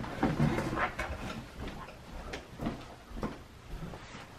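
A person getting up from an office chair and walking away: a few soft, irregular knocks and shuffles of the chair and footsteps that fade.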